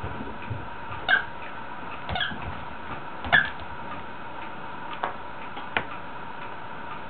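Small dog, a Yorkshire terrier, giving three short high-pitched yaps about a second apart, followed by two sharp knocks.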